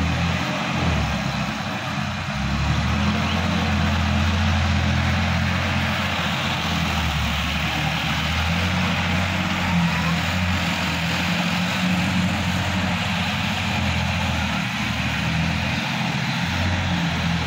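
Sonalika DI-50 RX tractor's diesel engine running steadily under load, pulling a rotary tiller through dry soil.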